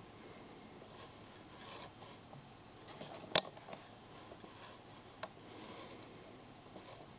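Form1 resin 3D printer performing a peel between layers: faint rubbing and rasping from the tank-tilt mechanism, with a few little clicks, one sharp click a little past the middle and a smaller one about two seconds later.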